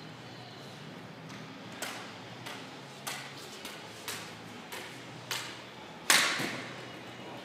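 Floorball stick striking the plastic ball: seven light clicks about every half second while stickhandling, then one loud crack of a shot about six seconds in, ringing out in the large hall.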